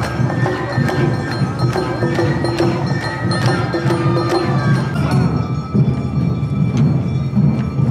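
Awa odori parade music: drums and a struck metal bell keeping the beat under a high melody line, which drops out about five seconds in while the percussion carries on.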